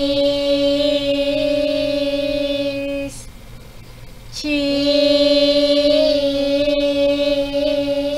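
A woman and a small child singing long held notes together, the child's voice an octave above hers and wavering slightly while hers stays steady. Two held notes of about three to four seconds each, with a short break between them.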